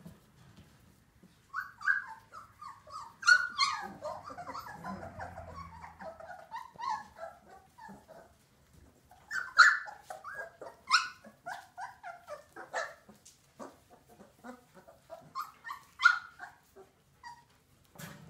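Old English Sheepdog puppies yelping and whining in short, high-pitched cries that overlap. They come in three spells with brief lulls between.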